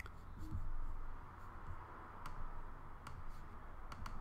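A few faint computer mouse clicks, including a quick pair near the end, over a steady low room hum.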